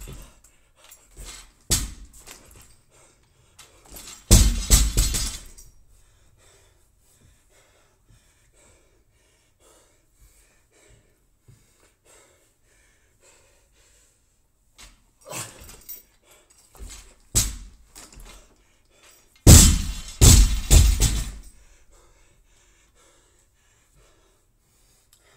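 Loaded barbell dropped onto a rubber gym floor, landing with a crash and bouncing with the plates rattling. This happens twice, about fifteen seconds apart, with lighter knocks and heavy panting in the quieter stretches between.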